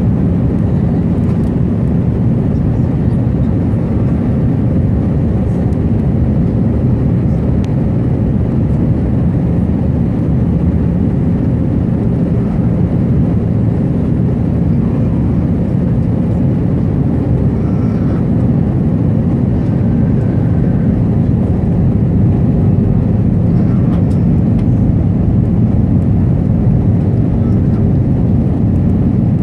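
Airbus A319 cabin noise heard from inside the cabin: a steady, loud drone of the jet engines and airflow with a low hum running through it.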